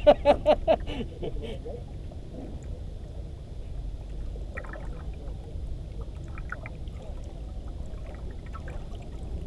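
Water sloshing and lapping against the hull of a small fishing boat, with a steady low rumble and a few faint splashes and ticks about halfway through.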